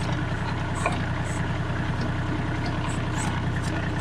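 Kubota L35 tractor's four-cylinder diesel engine running steadily at idle, with a few light clicks on top.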